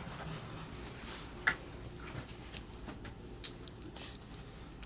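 Quiet eating sounds at a table: a few scattered short clicks and mouth smacks over a low background.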